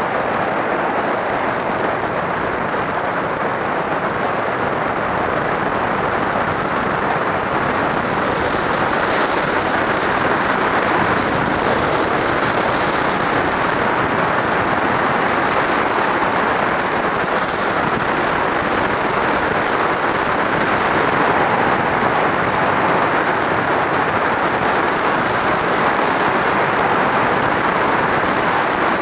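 Steady rush of wind over a helmet-mounted camera's microphone on a motorcycle travelling at road speed, with road and tyre noise blended in.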